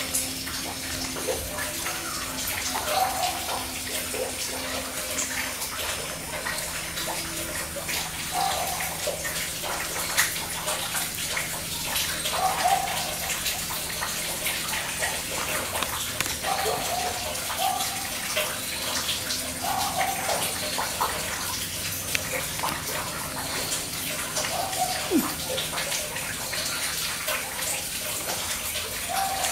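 Steady hiss of running water, with hens giving short soft clucks every few seconds.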